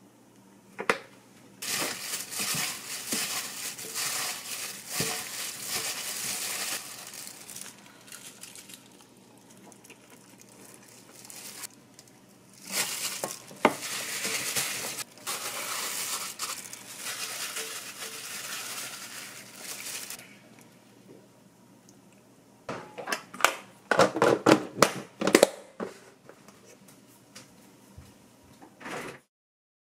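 Crinkling, rustling noise in two long stretches, then a quick run of sharp clicks and knocks near the end.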